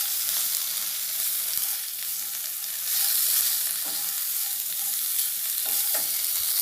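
Pepper, cumin, toor dal, garlic and omavalli leaves sizzling in ghee in a kadai, with a spatula stirring and scraping the pan a few times.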